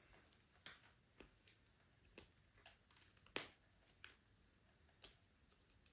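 Small plastic mating-nuc frame parts being handled and worked apart: scattered light clicks and taps, with a sharper snap about three and a half seconds in and another near the end.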